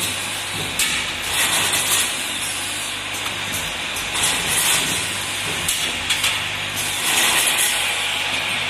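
Automatic mop-handle cap threading machine running: a steady low hum from its vibratory bowl feeders, with repeated short hisses of compressed air from its pneumatic cylinders, roughly one every second or two.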